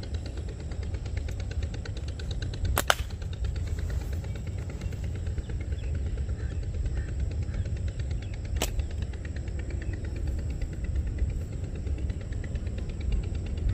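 Two sharp cracks from a flat-band slingshot shooting 6 mm steel balls at balloon targets, about six seconds apart, the first louder. A steady low rumble runs beneath them.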